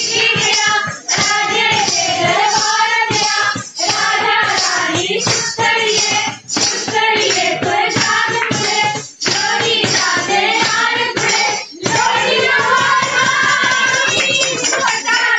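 Voices singing a folk song to music with percussion, in phrases a few seconds long.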